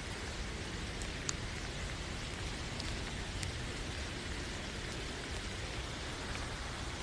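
Steady rain, an even hiss, with a few single drops standing out as sharp ticks.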